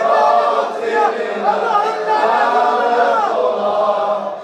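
Several voices singing a drawn-out Shia mourning lament (noha) for Fatima al-Zahra together, unaccompanied, with long held notes that bend in pitch.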